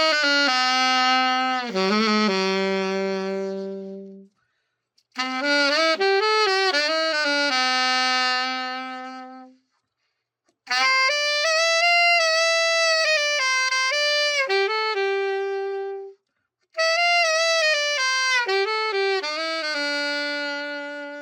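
Solo alto saxophone, a Selmer Series III Jubilee, played after a full overhaul. It plays four short melodic phrases, each ending on a held note that fades away, with brief pauses between them.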